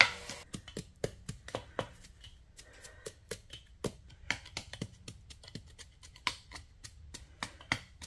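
A wooden ram handle tamping damp castable refractory into a furnace shell around a sand-filled form, a quick, uneven run of short knocks, several a second, packing the mix down tight.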